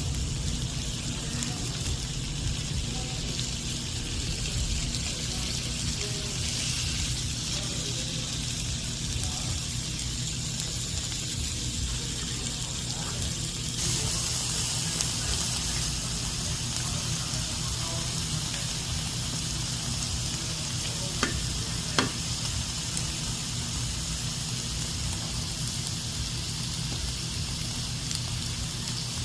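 Pork belly sizzling as it grills over a wood fire, a steady hiss that grows louder about halfway through. Two sharp pops come about two-thirds of the way in.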